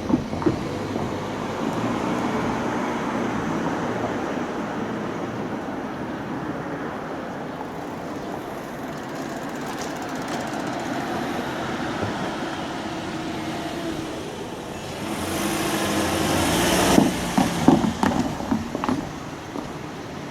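Road traffic at a railway level crossing: a steady run of vehicle noise, then a vehicle swells up and passes a little past the middle, followed by a quick run of clunks as its tyres go over the crossing rails.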